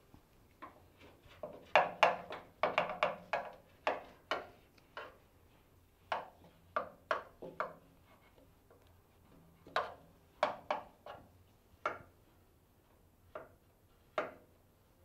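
Irregular sharp knocks and clicks of a thin metal swab rod tapping against the sheet metal inside a hollow body cavity as it is worked around to coat the inside with epoxy primer. The knocks come in a dense flurry during the first few seconds, then as sparser single taps.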